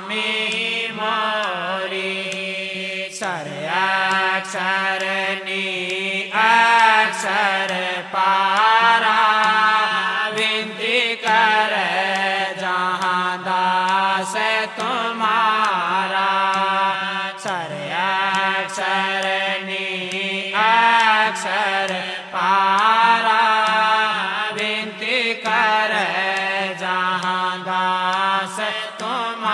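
Slow devotional hymn (aarti-vinti) sung in long, wavering held notes over a steady drone.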